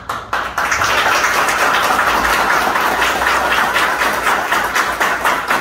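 Applause: a roomful of people clapping, starting suddenly and dense, thinning into more separate claps near the end.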